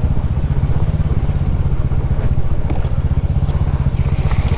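Single-cylinder motorcycle engine running steadily, with a rapid, even exhaust pulse.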